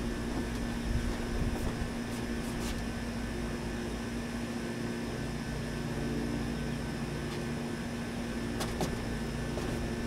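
A steady low mechanical hum holding one constant pitch, with a few faint clicks.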